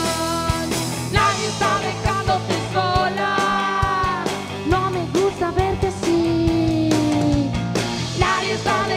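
Live garage rock with a post-punk edge: a woman sings a melody with long held notes over electric guitar, electric bass and a drum kit.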